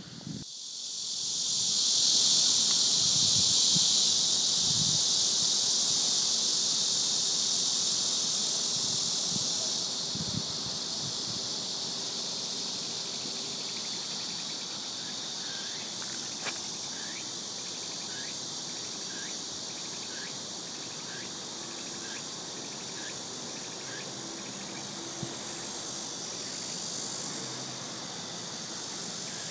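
Insects buzzing and chirping: a loud, steady, high-pitched insect buzz swells up in the first couple of seconds and eases off about ten seconds in, after which short chirps repeat about once a second over a softer buzz.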